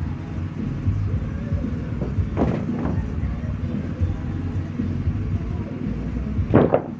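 A sawmill's engine running steadily with a low rumble, with two short, louder sounds, one about two and a half seconds in and one near the end.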